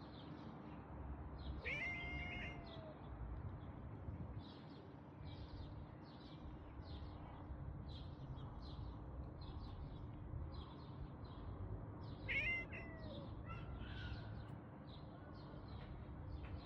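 A cat meowing twice, about two seconds in and again near twelve seconds, each call rising then falling in pitch. Faint, quick high chirps repeat underneath over a low steady hum.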